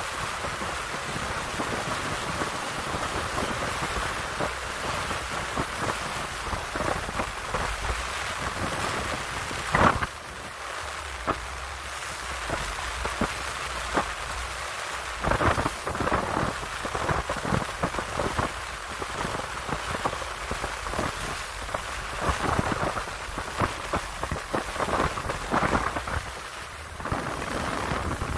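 Wind rushing over a phone microphone on an open boat at sea, with water splashing and irregular knocks against the hull. A single sharp thump stands out about ten seconds in, and the knocks come more often in the second half.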